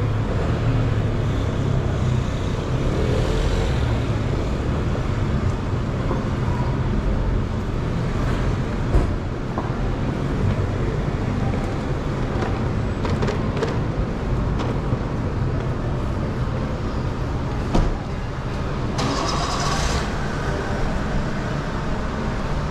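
Shopping-street ambience heard while walking: a steady low rumble and general din, with a couple of sharp knocks and a short hiss about nineteen seconds in.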